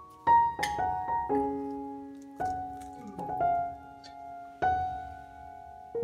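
Background piano music: single notes and chords struck at an unhurried pace, each ringing and fading before the next.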